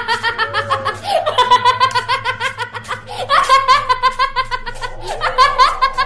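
High-pitched, rapid cackling laughter, pulsing several times a second in long runs with short breaks.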